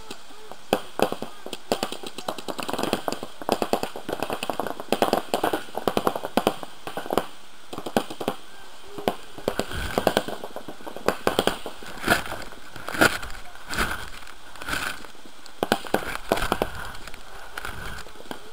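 Paintball markers firing many sharp pops, often in quick runs, with paintballs breaking against an inflatable bunker.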